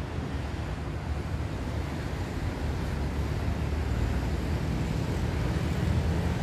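Low steady rumble of distant traffic with wind on the microphone, slowly growing louder.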